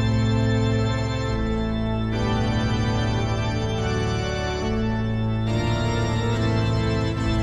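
Instrumental background music of held organ chords, shifting to a new chord every second or two.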